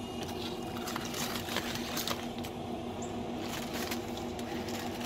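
Aluminium foil crinkling and rustling in irregular crackles as a foil packet is peeled open, over a steady mechanical hum.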